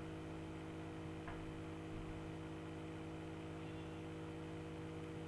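Quiet room tone with a steady electrical hum, and one faint click a little over a second in.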